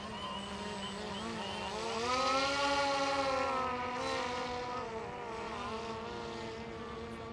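Homemade differential-thrust RC airboat running across the water, its two electric motors with 12-inch propellers buzzing with a pitch that wavers up and down as the motor speeds change. About two seconds in the pitch rises and the sound gets louder, then it settles to a steadier tone.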